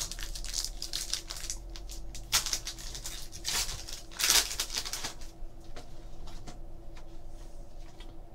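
Trading card packs and cards being handled: crinkling and tearing of pack wrappers and cards being shuffled, in a run of short rustles that are loudest about two and a half and four seconds in and grow quieter after about five seconds.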